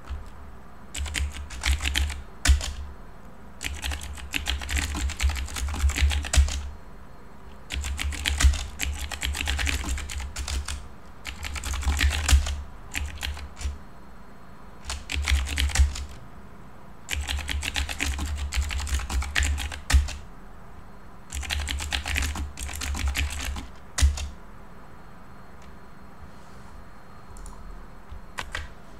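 Computer keyboard typing in bursts of quick keystrokes, each burst a second or two long, with short pauses between.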